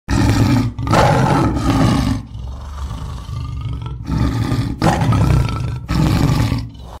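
Big cat roaring: a series of loud, deep roars about a second long each, with a quieter growling stretch about two to four seconds in.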